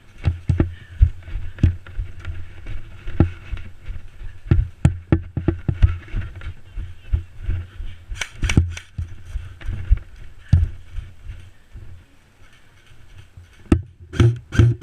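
Irregular knocks, clicks and thumps, with a quick cluster of clicks about eight seconds in and faster clicking starting near the end.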